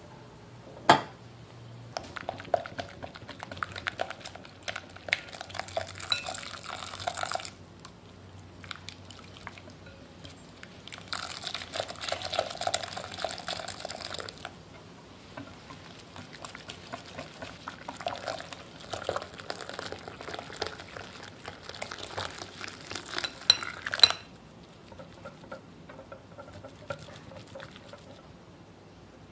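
Wire whisk beating a milk mixture in a glass bowl, its wires ticking rapidly against the glass in bursts. For a few seconds midway, liquid is poured in from a ceramic pot while the whisking goes on. A sharp clink about a second in and another, louder one near the end of the whisking.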